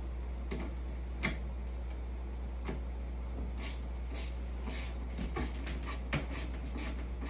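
Scattered light clicks and short ticking bursts at uneven intervals from hardware on the enclosure's frame being assembled by hand from underneath, over a steady low hum.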